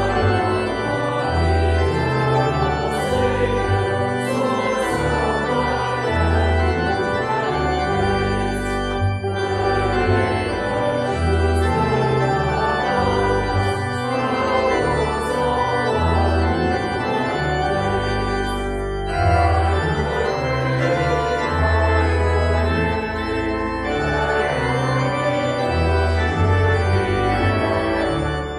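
Organ playing a hymn in sustained full chords, the bass notes moving about once a second, with brief breaks between phrases.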